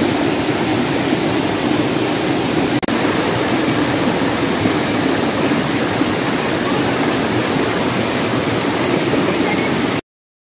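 Mountain stream rushing over rocks and small cascades: a loud, steady rush of water, with a brief break about three seconds in. It cuts off suddenly near the end.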